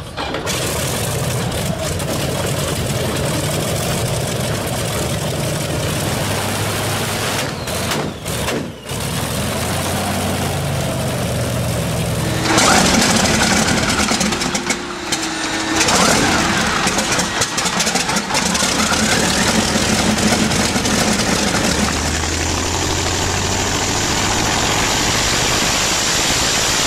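Pratt & Whitney R-2800 Double Wasp twin-row, 18-cylinder radial aircraft engines starting and running. The sound changes abruptly about 12 and 22 seconds in as one engine run gives way to another.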